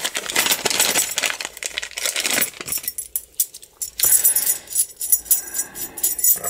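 Plastic bag crinkling as a new lock cylinder and its keys are unwrapped, then from about four seconds in, small metal clicks and clinks with a bright ring as the cylinder and keys are handled.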